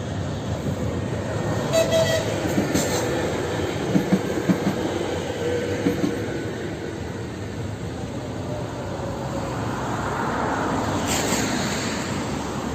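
Electric passenger train passing over the level crossing and points, its wheels clacking over rail joints in a burst of knocks, then the running noise fading away.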